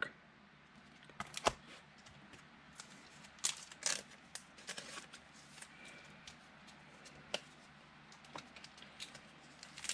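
Football trading cards being handled and sorted by hand: scattered short clicks, taps and rustles as cards are slid and set down.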